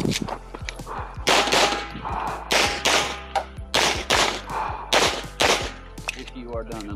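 Pistol shots fired rapidly during a practical-shooting stage, in quick pairs with short pauses between target engagements. The gun is a Metro Arms 1911-pattern pistol.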